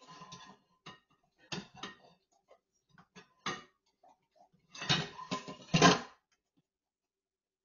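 Dishes clinking and clattering in a stainless steel sink as a German Shepherd noses and licks at them: scattered clinks at first, then the loudest run of clattering about five to six seconds in.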